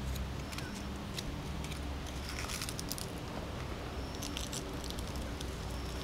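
Outdoor background: a steady low rumble with scattered faint clicks and a few brief faint high tones.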